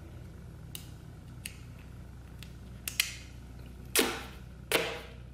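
A roll of duct tape being worked open: a few light clicks as the end is picked free, then two short loud rips a little under a second apart as the tape is pulled off the roll.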